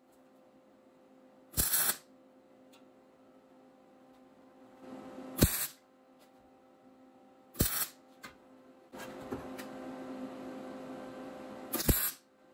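MIG wire welder laying four short tack welds on steel sheet metal, each a brief crackling burst of about half a second, spaced a few seconds apart. A steady low hum runs between them. The tacks go in one at a time, ahead of the final weld, to keep heat distortion of the patch panel down.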